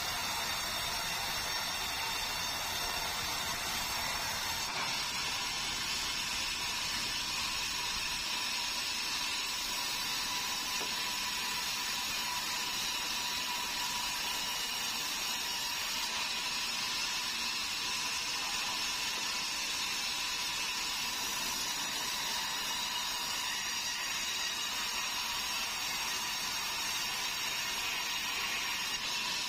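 Band sawmill running and ripping meranti boards: a steady, even sawing noise with a faint steady whine, shifting slightly in character about four to five seconds in.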